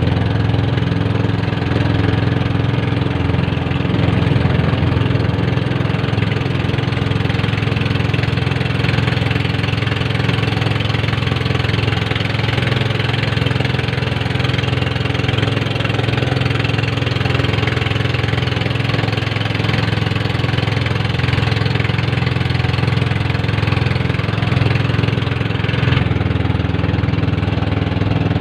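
Small fishing boat's engine running steadily under way, a constant loud drone with a slight change near the end.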